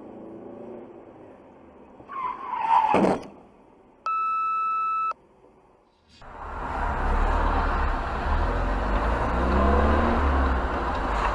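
Dashcam audio from a moving car: a short squeal falling in pitch about two seconds in, then a steady electronic beep lasting about a second, then the steady low rumble and road noise of the car driving.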